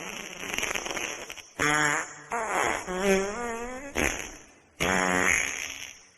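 Wet fart sound effects: a rapid sputtering flutter, then four pitched farts in quick succession with a wobbling pitch, the second the longest.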